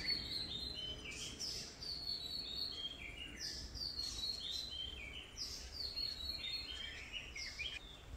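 A songbird singing, repeating a short phrase of high notes that step down in pitch, roughly once a second.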